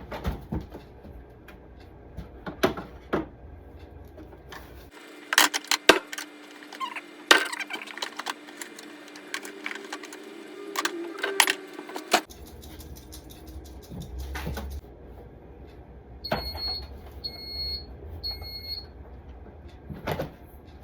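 Tap water running as a cleaning rag is rinsed, with sharp clunks and knocks of handling, the loudest about six to seven seconds in. Near the end come three short, high electronic beeps from a kitchen appliance.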